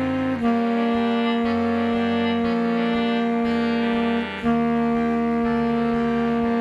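Saxophone holding long sustained notes: a new note begins just after the start and is held for about four seconds, then after a brief break a second long note is held. Fainter accompanying parts sound underneath.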